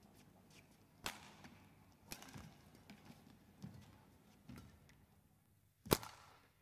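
Badminton rally: rackets striking the shuttlecock with sharp cracks, about a second in, about two seconds in and loudest near the end, with softer footfalls on the court between hits.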